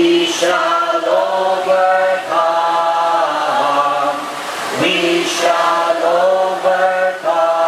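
A group of people singing together, a slow song in long, steady held notes with short breaks between phrases.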